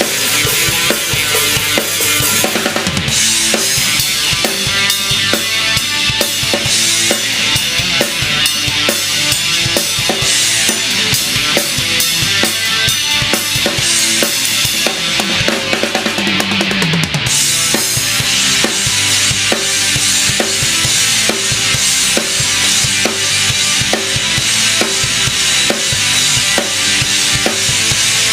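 Band music with a drum kit, a DW Collectors bubinga kit, playing a steady, driving beat of bass drum, snare and cymbals under bass and guitar. The cymbals drop out briefly just past halfway, while a note slides up and back down, and then the full beat returns.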